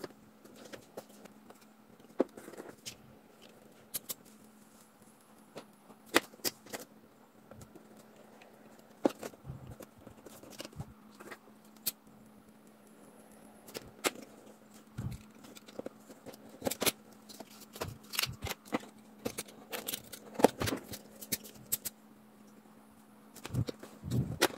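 Irregular sharp clicks and light taps of hard plastic as small PVC sheet parts and a disposable lighter are handled and set down on a cutting mat, over a faint steady low hum.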